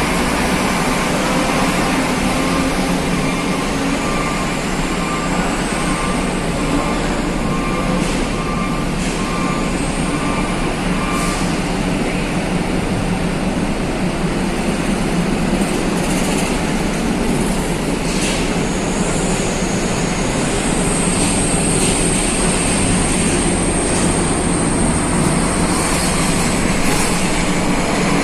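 Steady heavy rumble of ferry machinery and cars moving inside the enclosed car deck of a ship, with high thin squeals coming and going, the longest held for several seconds near the end.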